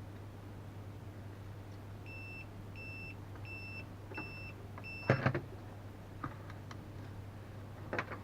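An electronic beeper sounds five short, evenly spaced high beeps, about one and a half a second. Right after them comes a burst of knocks and clatter from handling on the bench, the loudest sound, and another knock near the end, all over a steady low electrical hum.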